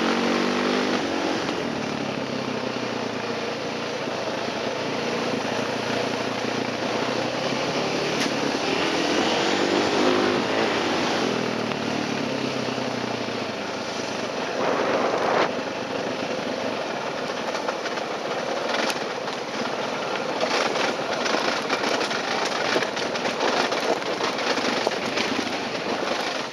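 Enduro motorcycle engine running hard along a dirt trail, its note rising and falling with the throttle. In the second half a run of sharp ticks and clicks comes in over the engine.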